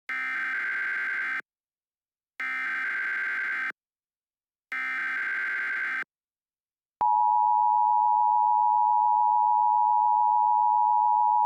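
Emergency Alert System tones: three bursts of the SAME digital header, a harsh buzzing data screech of about a second and a half each with short gaps between, then about seven seconds in the steady two-tone EAS attention signal begins, louder than the header bursts.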